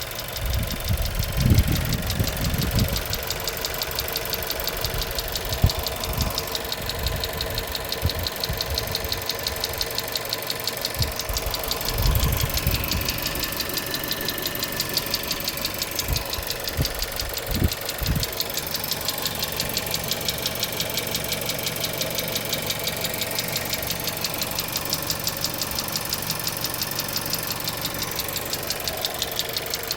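1.4-litre car engine running steadily with a fast, even ticking knock throughout, the abnormal 'bad sound' the owner is recording. A few low thumps come and go.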